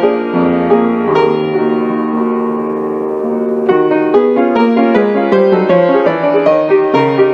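Background piano music: a few struck notes ring into a chord held for a couple of seconds, then a busier run of notes starts about halfway through.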